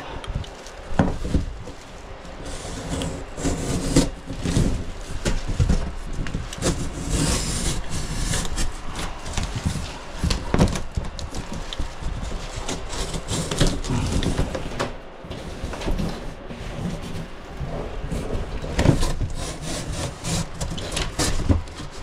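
Utility knife sawing and slicing through corrugated cardboard refrigerator packing, with the cardboard scraping and rubbing as it is worked loose, broken by a few sharp knocks.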